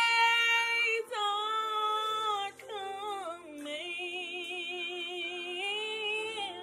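A woman singing a gospel song solo in a strong voice: a held note at the start, a quick melismatic run about three seconds in, then a long sustained note with wide vibrato.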